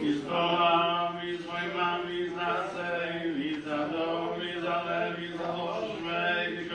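Male chanting on a steady held pitch, with syllables rising and falling over the drone of the tone: liturgical recitation in chant.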